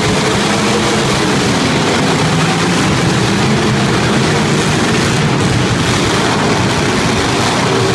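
Demolition derby car engines running loud and steady, several at once.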